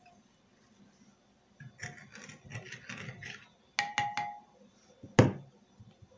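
A metal spoon clinking and scraping against ceramic dishware: a run of small clatters, then three quick ringing taps, then one loud knock on the table about five seconds in.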